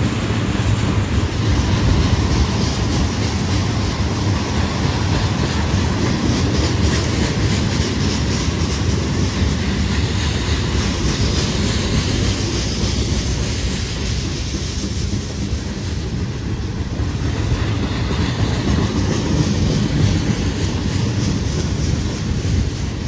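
Freight train's tank cars, covered hopper and boxcars rolling past close by: a steady noise of steel wheels running on the rails.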